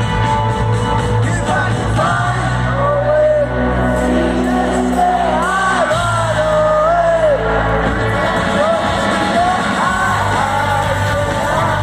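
Live rock band playing, with a lead singer's voice carrying the melody over sustained bass, drums and cymbals.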